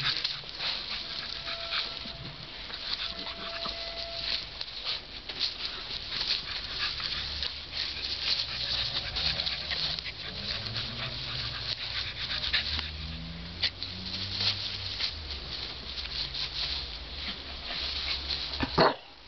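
Entlebucher Sennenhund puppies play-fighting in grass: rustling and scuffling throughout, with low puppy growls in the middle.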